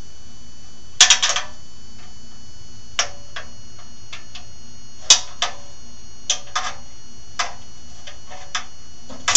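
Small steel wrench clicking and clinking against the radial saw's rusty steel base as a tight, bound-up nut is worked loose: about ten sharp metallic clicks at irregular intervals, the loudest a cluster about a second in and another near the end.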